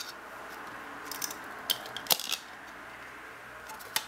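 Clear plastic CD jewel case being handled and a disc pried off its centre hub: a few short, sharp plastic clicks and rattles.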